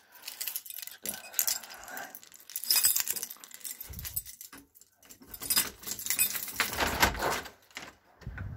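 A bunch of keys jangling in irregular clusters, with a few dull thumps.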